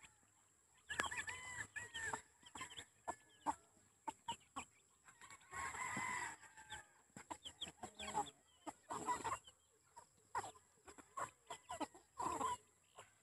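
A free-range flock of Basilan native chickens and Rhode Island Reds clucking with many short calls, and one longer call about six seconds in.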